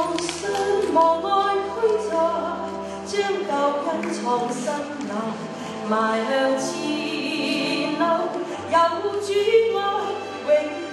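A woman singing into a microphone over musical accompaniment with held low bass notes, which change about three seconds in and again near nine seconds.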